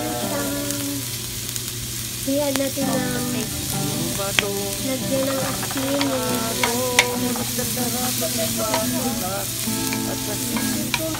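Julienned vegetables sizzling as they are stir-fried in a stainless steel pan, with the utensil knocking sharply against the pan now and then, loudest twice near the middle. Background music carries a tune through it.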